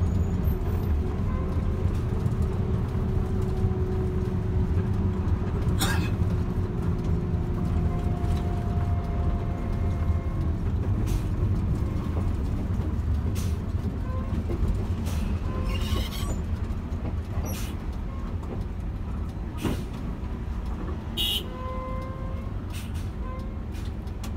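Inside a moving intercity bus: the engine and road noise make a steady low rumble, with scattered short clicks and knocks from the cabin and a few faint brief tones.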